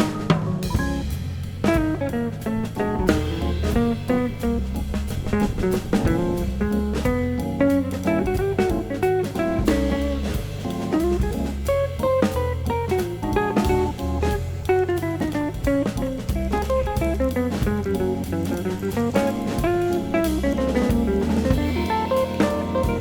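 Background music: a jazzy tune with guitar and a drum kit keeping a steady beat.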